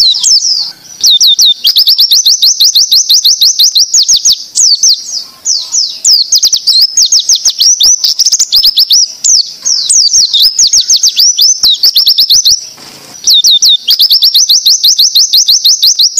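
White-eye (pleci) singing its 'tembakan ziper' (zipper) song: long runs of rapid, high, sharp whistled sweeps, many a second, broken by two short pauses, about a second in and near the end. It is a masteran recording used to teach caged white-eyes this song.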